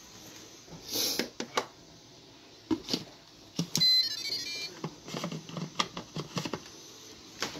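A short electronic chime of a few quick stepped notes about four seconds in, with scattered knocks and clatter of handling around it.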